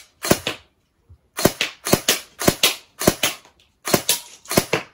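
Compact AR-style airsoft gun firing single shots, about two a second with a short pause near the start. Each shot is a sharp crack followed closely by a second click.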